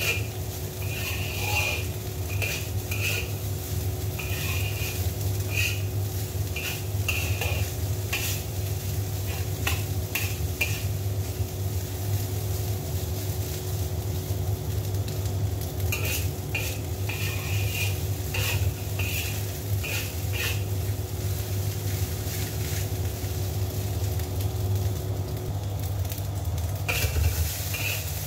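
Fried rice sizzling in a large black wok while a metal spatula stirs, tosses and scrapes it, in runs of scraping strokes and clinks against the wok with short pauses between. A steady low hum runs underneath throughout.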